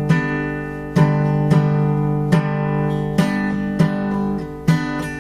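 Music: an acoustic guitar strumming chords, each strum ringing on until the next, with no singing.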